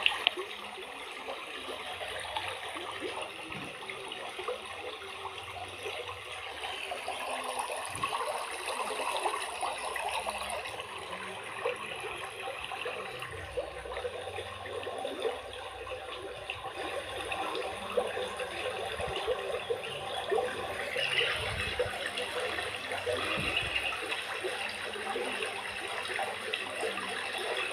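Shallow stream water trickling and flowing over rocks, a steady running-water sound with a few small knocks.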